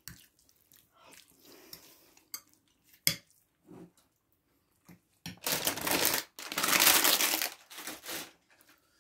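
A metal fork tapping and scraping in a ceramic bowl while eating, with a sharp click about three seconds in. Near the end comes a louder stretch of rustling, crumpling noise lasting about three seconds.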